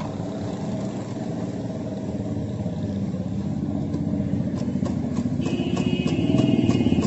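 A small engine running nearby in street traffic, growing louder, with regular clicks about four a second joining about halfway through and a steady higher tone from about two thirds of the way in.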